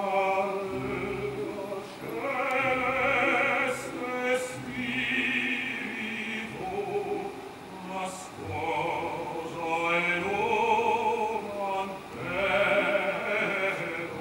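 Male opera voice singing a duet line with wide vibrato, in several loud phrases with brief breaths between them, over orchestral accompaniment.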